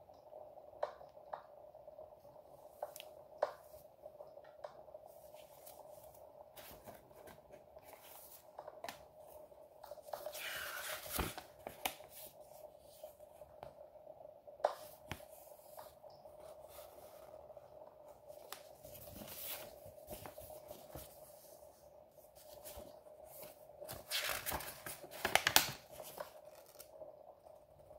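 Paper and thin plastic being handled: the crinkle and rustle of kit instruction sheets and a plastic decal sleeve, with small taps and clicks. The loudest rustling comes in two spells, about ten seconds in and again near the end, over a faint steady tone.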